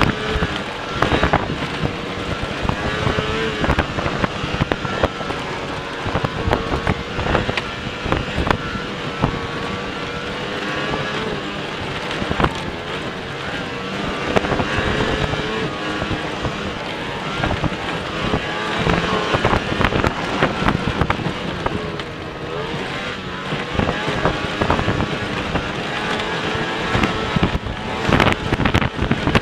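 Racing snowmobile engine running hard at speed with a wavering whine, the machine travelling over bare dirt and dry grass with almost no snow. Frequent knocks and clatter come through over the engine.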